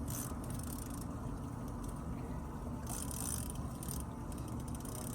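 Fishing reel being cranked, its gears whirring and clicking, over the steady low rumble of the boat.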